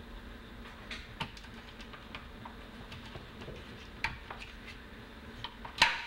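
Light plastic clicks and knocks as the shield is fitted back onto the tray of a Kirby Gsix carpet shampoo system, a few scattered taps with the loudest snap near the end.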